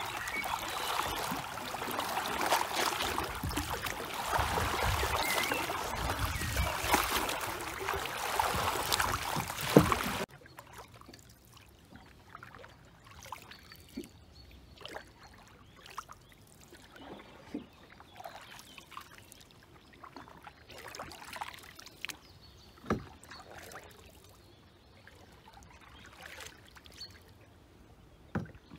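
Canoe paddle splashing and churning the water close by. About ten seconds in it drops suddenly to soft, scattered paddle dips and drips as the canoe glides.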